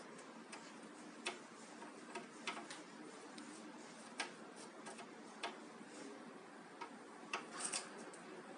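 Bad bearing cup clicking as the part turns: sharp clicks at irregular spacing, about one a second, over a faint steady hum, the sign of a damaged bearing race.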